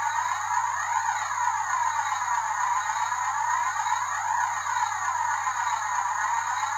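Electronic music or a synthesized sound effect: a swirling tone that keeps sweeping up and down in pitch over a steady low hum.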